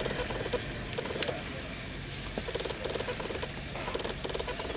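African wild dogs calling with short chattering squeaks in quick bursts, several times over, while feeding on a wildebeest kill.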